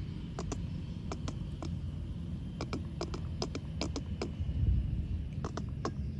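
Low steady rumble of road traffic, swelling a little about two-thirds of the way in, with irregular sharp clicks scattered over it.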